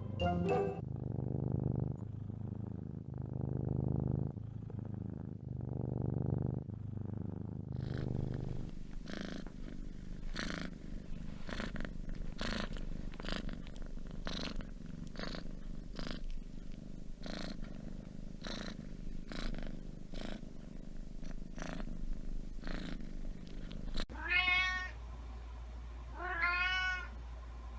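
Domestic cat purring in a steady, pulsing rhythm. Near the end a cat meows twice.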